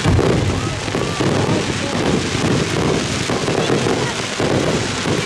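Fireworks display: booming aerial shell bursts over a crowd of spectators talking.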